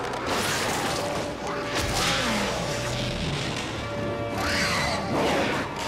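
Film score music with crashing impact sound effects, a few hits spread through it.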